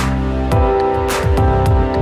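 Background music with a steady beat: sustained melodic notes over regular drum hits.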